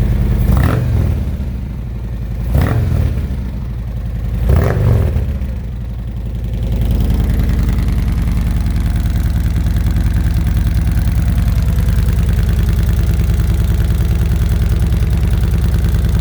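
Harley-Davidson Milwaukee-Eight V-twin running through slip-on mufflers with modified baffles, blipped three times about two seconds apart in the first five seconds, each rev rising and falling quickly. It then settles back to a steady idle.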